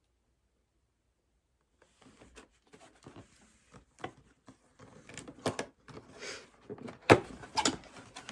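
Rummaging in a box of packed items: rustling and crinkling of packaging with scattered clicks and knocks, starting about two seconds in and getting busier, with the sharpest knock about seven seconds in.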